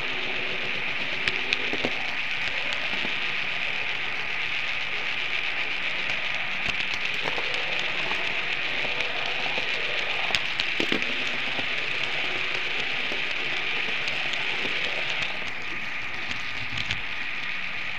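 Märklin HO model train running along the layout track, picked up close by a small camera riding on it: a steady hiss and crackle with scattered sharp clicks.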